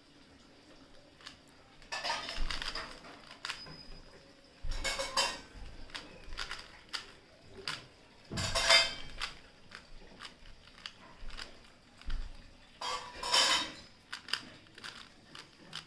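A plastic Rubik's cube being turned by hand during a timed solve. There are quick bursts of clicking and clacking as its layers are turned, about four bursts with short pauses and single clicks between them.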